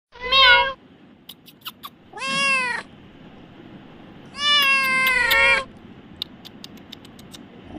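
Kitten meowing three times, high-pitched, the third meow longer than the first two.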